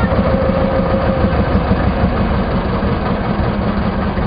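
A small river boat's engine running steadily with a fast, even pulse.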